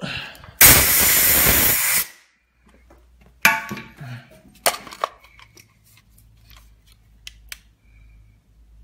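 A cleaning spray hissing in one loud burst of about a second and a half, blasted at a keyed motor-shaft part to wash dried grease out of a clogged hole. Then several sharp knocks and clicks of handling.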